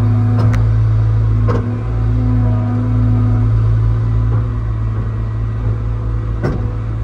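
Excavator's diesel engine running steadily, heard from inside the cab, with a higher tone coming and going twice and three sharp knocks.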